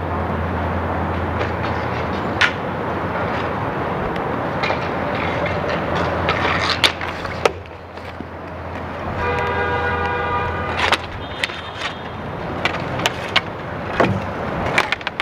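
Roller hockey play around the net: sharp clacks of sticks and puck, with a steady low hum under the first half that stops about halfway. A little past halfway a vehicle horn sounds once for about a second and a half.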